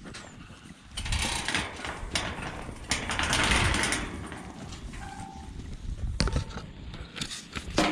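Metal sheep-yard gates and rails rattling and clanking in irregular bursts during drafting, with a couple of sharp knocks near the end.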